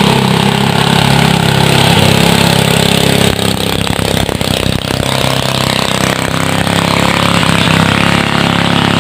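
Klotok river boat's engine running loud and steady as the boat pushes upstream against the current, a low even drone that holds its pitch.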